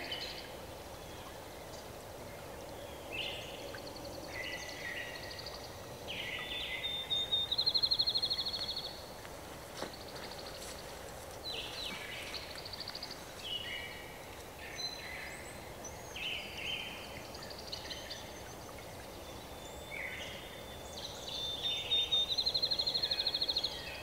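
Eastern meadowlark calling: scattered short slurred and buzzy notes, with a dry rapid chatter about seven seconds in and again near the end.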